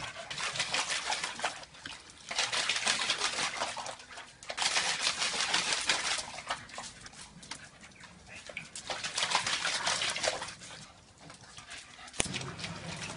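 A pug splashing and pawing at water in a shallow plastic tub, in rough bouts a second or two long with short pauses between.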